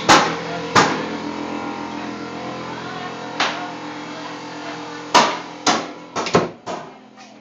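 A series of sharp knocks or bangs: two near the start, one in the middle and a quick cluster near the end. Underneath runs a steady ringing hum of several held tones.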